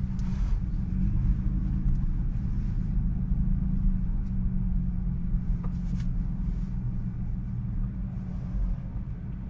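Steady low rumble inside a Tesla Model 3's cabin as the car rolls slowly forward: tyre and road noise with traffic outside, and no engine note.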